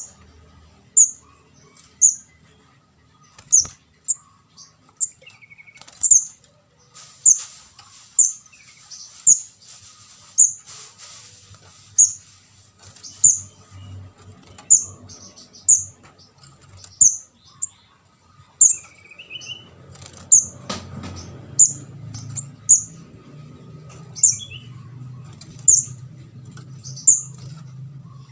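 Calls of a juvenile kemade jawa (ndas abang), used as a bird-catching lure: a sharp, high, loud chirp repeated about once a second, with a few softer, lower twittering notes in between.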